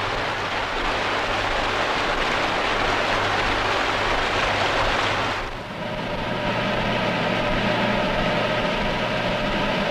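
A steady rushing hiss with no pitch to it. About five and a half seconds in it drops away and gives way to the steady hum of a hood-type hair dryer running, with several steady tones in it.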